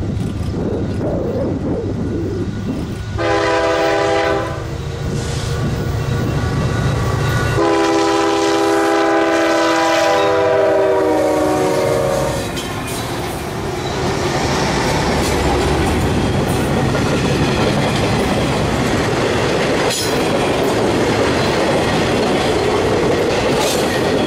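Freight train's diesel locomotive horn sounds a short chord about three seconds in and a longer one from about eight to twelve seconds in, over the low drone of the locomotive engines. From about halfway through, the locomotives and cars pass with a steady rumble and clickety-clack of wheels on rail.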